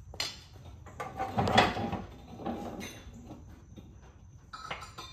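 Metal clanks and knocks of parts and tools being handled on a mower deck while its spindles are knocked out, with one louder clunk about a second and a half in and a few lighter knocks near the end.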